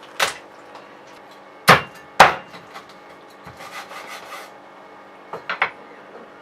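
Sharp cracks and knocks as a whole raw chicken's back is bent and broken away from the breast. Three loud snaps, two of them close together about two seconds in, followed by lighter clicks and rubbing.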